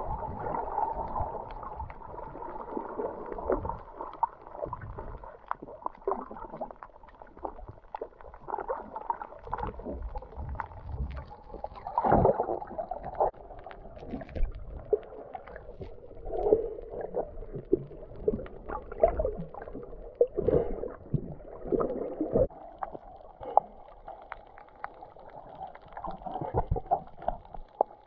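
Muffled underwater sound picked up by a camera held below the surface: a dull rush of water with many scattered clicks and crackles, the loudest cluster about twelve seconds in.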